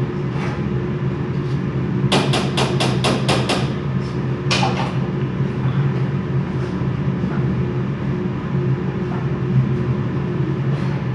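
Steady hum of a kitchen range-hood fan. About two seconds in comes a quick run of about eight metal taps, and two more follow a couple of seconds later: a stirring spoon knocked against the rim of a cooking pot.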